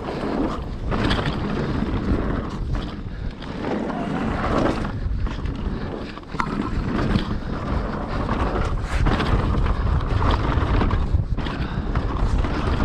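Wind buffeting the microphone while a mountain bike rides a dirt trail, with a steady rumble of tyres and many short knocks and rattles from the bike over rough ground.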